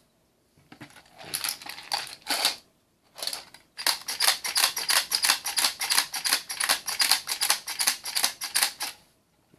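.22 LR cartridges being pushed one after another through a Lightnin' Grip loader into a rifle magazine, making a fast, even run of sharp metallic clicks, about five a second. Before that come a couple of seconds of looser cartridge rattling.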